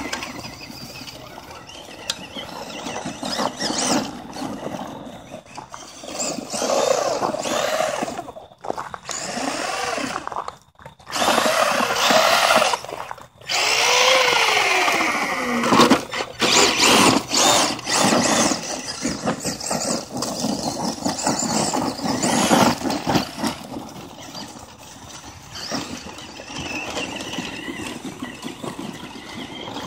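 Tamiya Blackfoot RC monster truck's electric motor whining as it revs up and down under throttle, with the tyres churning over gravel. The whine is broken by a few brief quiet gaps, and there is one long falling whine about halfway through.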